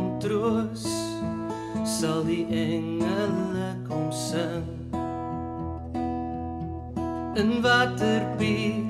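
A man singing while strumming an acoustic guitar. The voice drops out for about two seconds past the middle, leaving the guitar alone, then comes back near the end.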